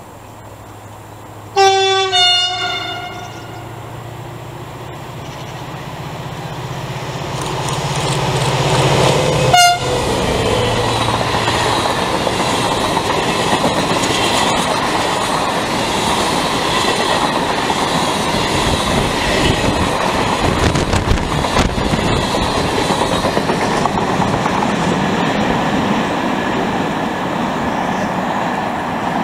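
Takargo diesel locomotive 6005, a Vossloh Euro 4000, sounds its horn in two quick blasts about two seconds in and once more briefly about ten seconds in, its engine drone growing as it nears and passes. A long rake of empty timber flat wagons then rolls by with a steady rumble and wheel clatter on the rails.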